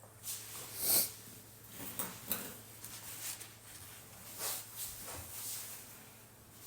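A dog's coat being hand-stripped with a stripping stone: soft, irregular scratchy pulls through the hair, roughly one a second, over a low steady hum.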